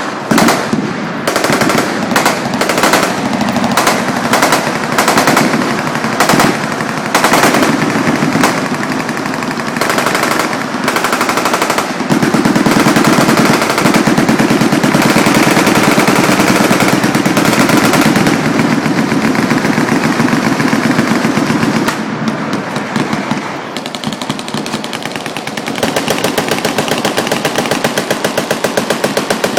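Automatic machine-gun fire: short bursts for the first dozen seconds, then long continuous fire that eases off about twenty-two seconds in and picks up again about four seconds later.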